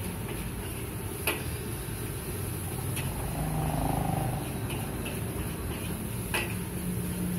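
A metal spatula scraping and knocking against a steel wok while fried rice is stir-fried over a gas burner. Two sharp clangs, about a second in and near the end, with lighter ticks between them, over a steady low rumble.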